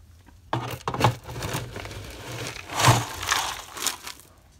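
Plastic feed scoop digging into a bin of micro-pelleted horse feed, the pellets rustling and crunching as the scoop pushes in and fills. The loudest scoops come about a second in and just before three seconds.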